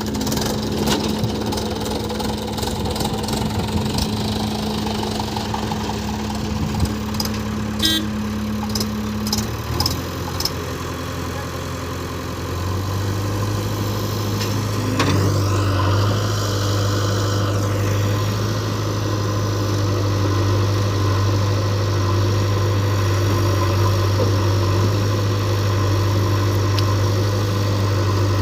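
Diesel engines of a JCB 3DX backhoe loader and a Mahindra 475 DI tractor running under steady work. The engine note shifts in speed about ten seconds in and again a few seconds later. There are a few sharp knocks around eight seconds.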